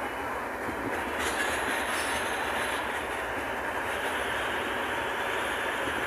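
Steady rushing rumble of a vehicle driving along a road, heard from inside it: tyre and wind noise.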